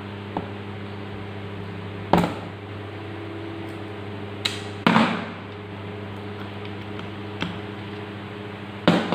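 Sharp metal clicks and knocks from distributor parts and tools being handled during disassembly, about six in all, the loudest about two, five and nine seconds in, over a steady background hum.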